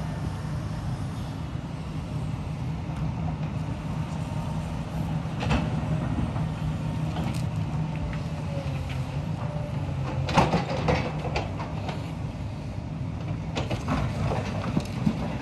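Heavy demolition machinery's diesel engine running steadily, with scattered clanks and crashes of debris, the loudest cluster about ten seconds in.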